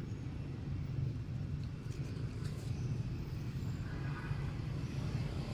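Steady low rumble, with a faint brief high-pitched sound about four seconds in.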